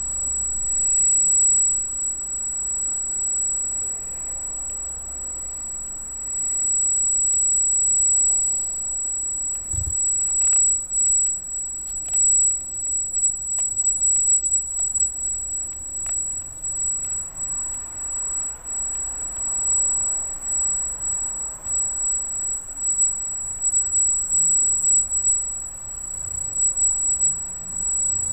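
Arris CM2000 brushless gimbal motors giving a steady, very high-pitched whine, a squeal that is part of how this gimbal runs. A thump about ten seconds in and a few faint clicks.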